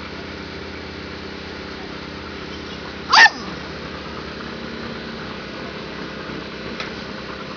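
A puppy lets out one sharp yelp that falls steeply in pitch, about three seconds in, during rough play-wrestling, over a steady low hum.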